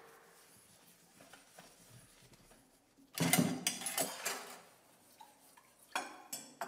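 Dishes and bowls knocking and clattering as they are washed at a kitchen sink: a few faint knocks at first, then a burst of clatter about three seconds in and another near the end.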